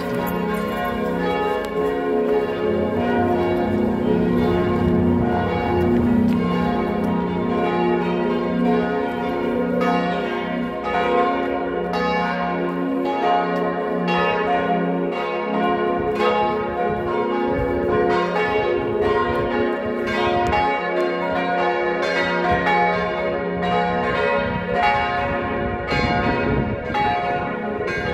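Church bells swinging in a full peal, tuned to C, B-flat, A-flat and F, their strokes overlapping in a continuous, irregular ringing.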